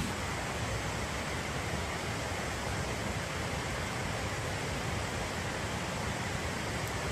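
Hard rain falling steadily, an even hiss with no breaks.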